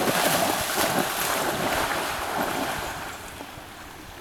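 Dog splashing into the water and churning it as it goes after a thrown object. The splashing is loudest at the start and dies away over about three seconds.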